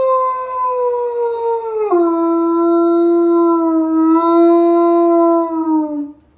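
Husky howling: one long howl that slides slowly down, drops suddenly to a lower pitch about two seconds in, holds steady, then sags and stops near the end.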